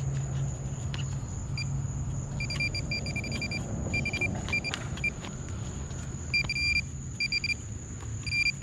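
Metal detector beeping at one steady high pitch in short repeated bursts, signalling metal in the dig hole.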